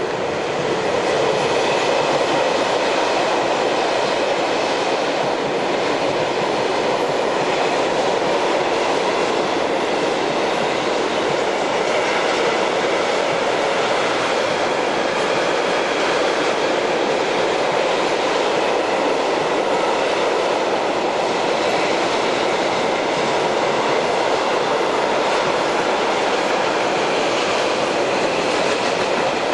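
Freight train of container and swap-body wagons rolling past at speed: a steady rumble of wheels on rails with a clickety-clack.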